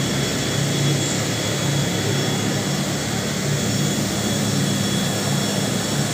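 Steady, loud mechanical drone with hiss, heaviest in the low range, with faint steady whistling tones above it.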